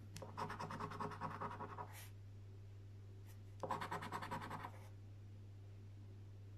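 A coin scratching the coating off a paper scratchcard: two bouts of quick, rapid back-and-forth strokes, the first about two seconds long and the second about a second, a short pause between them.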